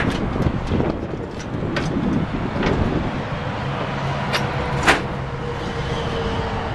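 A few light clicks and knocks as a side compartment door on a pickup's utility service body is handled, with one sharp latch click about five seconds in as the door is opened.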